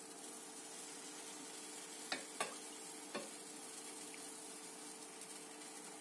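Cold sugar syrup being ladled over hot, freshly baked semolina-and-nut cookies on a hot baking tray, sizzling faintly and steadily; the sizzle comes from cold syrup meeting the hot dessert and tray. Three light knocks about two to three seconds in.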